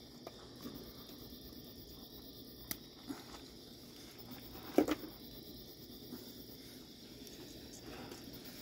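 Steady chorus of crickets, with a few faint clicks and one sharper knock about five seconds in.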